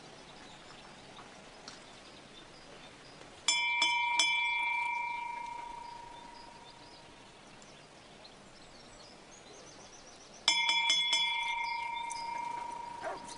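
Small metal gate bell rung twice, about seven seconds apart. Each time, a few quick clapper strikes set off a clear ring that fades over two to three seconds.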